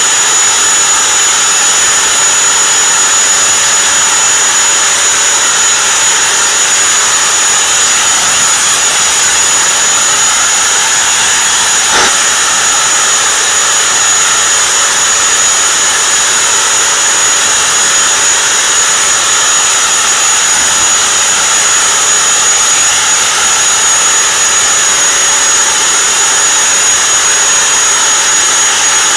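Homemade leaf blower running steadily: a loud rush of air with a constant high-pitched whine. There is one brief click about twelve seconds in.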